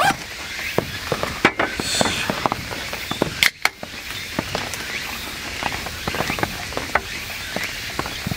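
Steady rain pattering, with scattered drop ticks. About three and a half seconds in, an aluminium beer can's pull tab snaps open, and beer starts pouring into a glass near the end.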